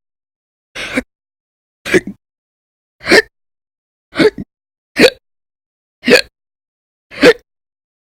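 A woman's loud hiccups, seven sharp ones in a row at about one a second, a few with a quick double catch, part of a bout of persistent hiccups lasting many hours.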